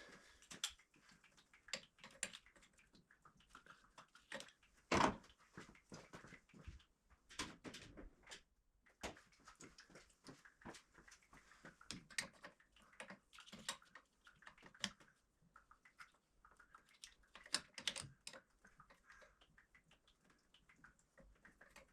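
Scattered clicks, clanks and knocks of hand tools and parts being worked under the hood, irregular, with the loudest knock about five seconds in.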